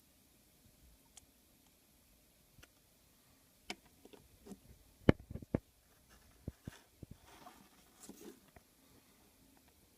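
Scattered small clicks and taps from hands working on an open iPhone 5 while trying to press the front-facing camera's cable connector onto the logic board; the connector is not yet seating. The loudest tap comes about five seconds in, with a cluster of lighter clicks around it.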